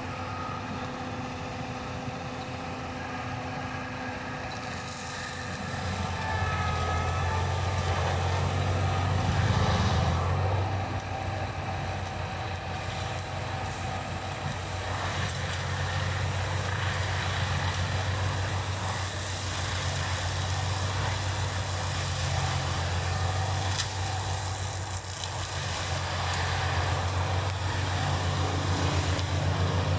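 John Deere 6190R tractor's six-cylinder diesel engine running steadily while driving a FAE hammer forestry mulcher that shreds brush and debris. It gets louder about six seconds in and is loudest near ten seconds.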